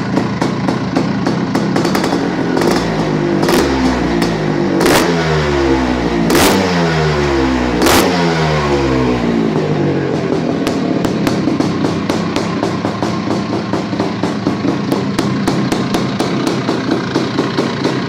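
Freshly rebuilt Husqvarna 430 two-stroke motorcycle engine idling, then revved about four times in quick blips, the pitch rising and falling with each, before settling back to idle with distinct, evenly spaced firing pulses.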